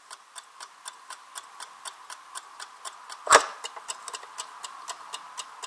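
Mechanical clock ticking evenly, about four ticks a second, with one much louder sharp knock about three seconds in.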